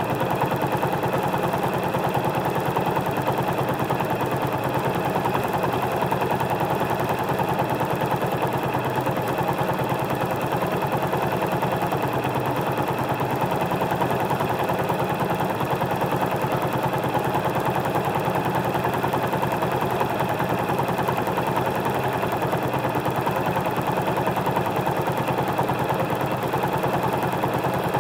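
Motorcycle engine idling steadily while the bike stands still, picked up by an external microphone mounted under the seat.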